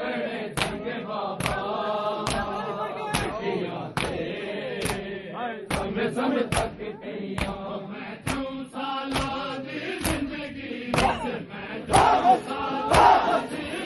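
A crowd of men chanting a mourning chant in unison, kept in time by sharp, evenly spaced chest-beating (matam) slaps, a little more than one per second. Near the end the crowd's voices grow louder into shouting.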